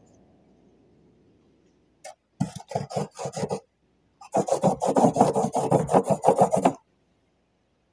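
Pencil scratching on paper over a hard bench: a few strokes about two seconds in, then a longer run of rapid back-and-forth scribbling. This is a finished job being crossed off a written job list.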